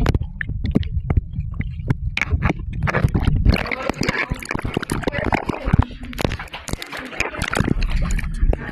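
Water splashing, sloshing and gurgling around a waterproof camera held at and under the water's surface, with muffled low rumble while it is submerged in the first few seconds.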